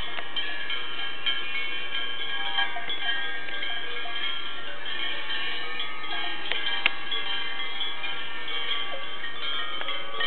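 Many cowbells clanging together in a continuous jangle of overlapping ringing tones, with a sharper single clang about seven seconds in.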